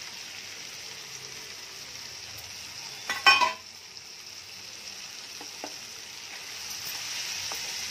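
Oil sizzling steadily in a pan of sautéed onion, tomato and garlic as boiled colocasia (taro) pieces are tipped in, with one brief loud clatter about three seconds in and a few light clicks after it.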